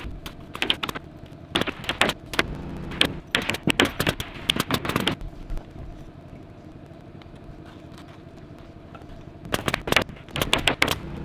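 Rapid runs of sharp knocks and clicks from work on the roof deck: one long flurry over the first five seconds, then a quieter gap, then another flurry near the end, over a steady low hum.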